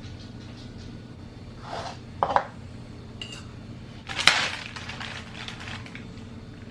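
Dishes and utensils clinking and knocking in a kitchen: a couple of sharp knocks about two seconds in, a brief high ping, then a louder clatter around four seconds in, over a steady low hum.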